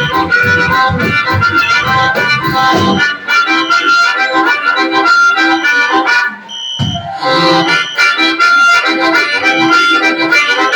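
Live blues-rock band playing, led by a harmonica with guitar behind it; the bass and drums drop out about three seconds in. During a short break about six and a half seconds in, a steady high electronic tone sounds: the venue's fire alarm beginning to go off under the music.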